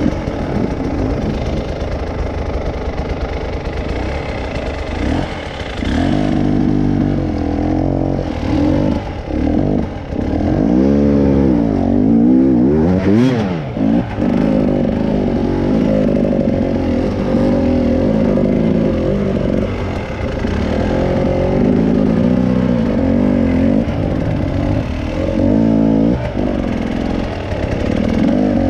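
Off-road vehicle engine running under load on rough ground, revving up and down several times as it works over rocks.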